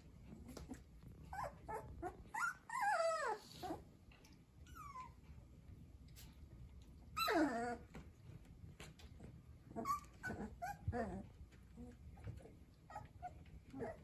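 Three-week-old Deutsch Drahthaar puppies whining and yipping as they play-wrestle. The loudest is one longer whine about seven seconds in that slides down in pitch.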